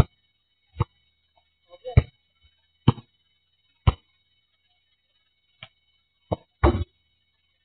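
Basketball bouncing on an asphalt court: single sharp bounces roughly once a second, with a longer rattling run of hits near the end.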